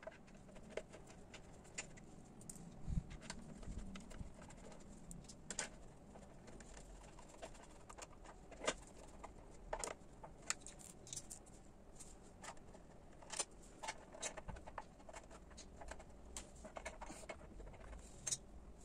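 Faint, irregular clicks and light taps of an Allen key and screws on metal as an exhaust heat-shield cover is bolted on, with a few dull knocks about three seconds in.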